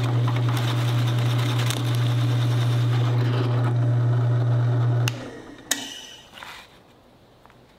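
A 12-inch Ryobi benchtop drill press runs with a steady motor hum while a large Forstner bit bores into a wooden board. The hum stops about five seconds in and the sound dies away, with one sharp click shortly after.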